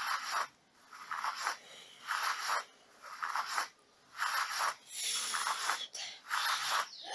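A woman's breath puffing hard and rhythmically with exertion, one short breathy huff about every second, as she works out with hand weights.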